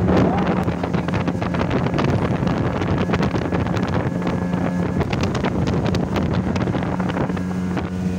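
Speedboat's outboard motor running at speed with a steady drone, under heavy wind buffeting on the microphone and water rushing past the hull.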